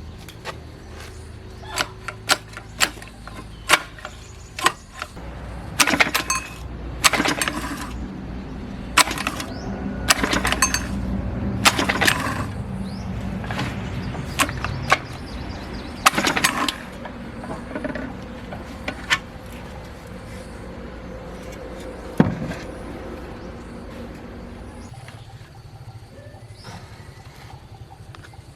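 Irregular sharp metal knocks and clanks, denser in the middle stretch, over a steady low machine hum that stops about 25 seconds in: metal parts being struck and handled during repair work.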